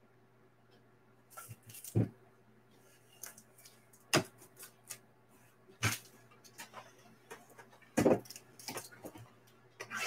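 A hard plastic graded-card slab and a wrapped card pack being handled and set down. There are four louder sharp clicks and taps about two seconds apart, with fainter ticks and rustles between them.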